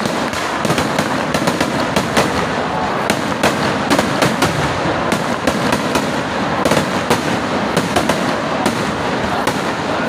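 Aerial fireworks going off in a dense barrage: continuous crackling with many sharp bangs, several a second, as shells burst overhead.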